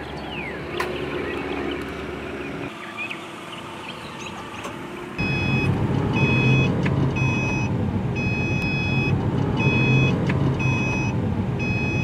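Car seatbelt-reminder chime beeping repeatedly over a steady engine hum in the cabin, starting about five seconds in. Before it there is a quieter outdoor background with a few bird chirps.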